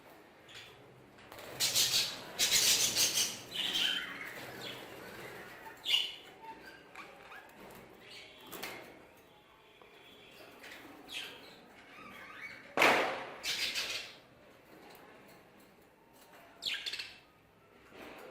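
An aviary of Hagoromo budgerigars, the birds chirping and chattering, with several loud bursts of wing flapping as birds take off and fly, the biggest about two seconds in and near the middle.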